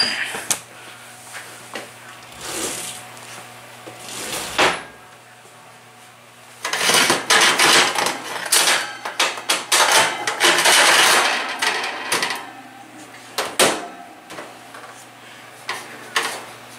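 Wire oven racks being slid into an electric oven, metal scraping and clanking on the rack supports. A few separate clanks come first, then several seconds of continuous scraping and rattling, then one more clank.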